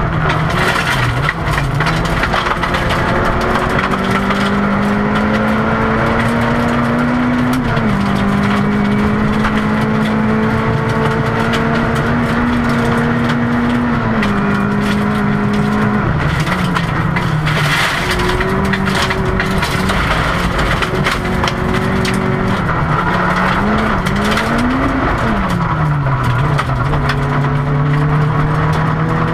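Rally car engine heard from inside the cabin, pulling hard on a gravel stage: its pitch climbs slowly in each gear and drops at the shifts several times, with a quick rev up and down a little before the end. Gravel noise from the tyres runs under it, with scattered sharp ticks of stones hitting the car.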